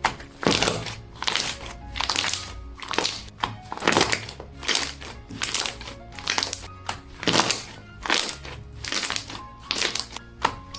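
Cream-textured slime being squished and pressed by hand, making sharp wet clicks and pops about twice a second, over soft background music.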